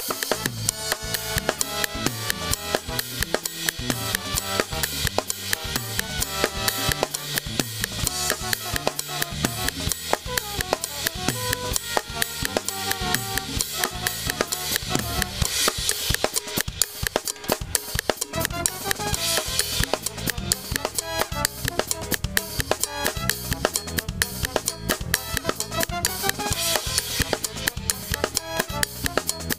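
Acoustic drum kit played in a steady groove, with snare, bass drum and cymbals, along with the rest of a pop song's instruments.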